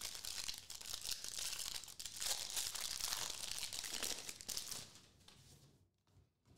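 Foil wrapper of a Panini Prizm soccer card pack being torn open and crinkled by hand: a dense crackling rustle that dies away about five seconds in. A few faint ticks of the cards being handled follow near the end.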